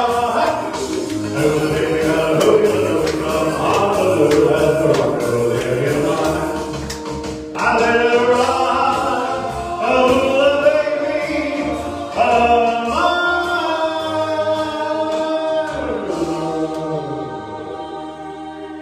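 Music with sustained, choir-like singing: long held vocal notes over an accompaniment, with new phrases coming in twice.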